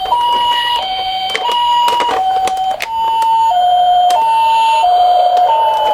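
Toy ambulances' electronic two-tone sirens in the Japanese 'pee-po' ambulance pattern, alternating between a high and a lower tone about every two-thirds of a second. A second siren overlaps slightly off pitch in the middle, over sharp clicks and clatter from the minicars on the slope.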